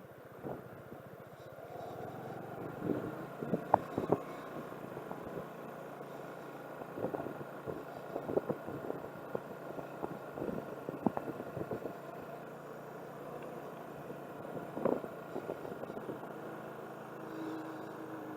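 Car driving slowly along a road, heard from inside: steady engine and road noise with scattered knocks and rattles, most of them about four seconds in, through the middle stretch and near fifteen seconds.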